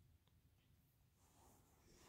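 Near silence: room tone, with one faint tick about a quarter-second in.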